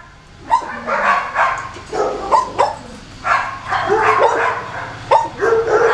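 Kennel dogs barking and yipping repeatedly in short, irregular calls, excited as they wait for their evening food.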